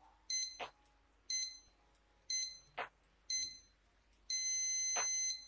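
DGT 2500 chess clock's low-time warning: four short beeps about a second apart as the last seconds run down, then one long beep of about a second as the time runs out and the player flags. A few soft clicks fall between the beeps.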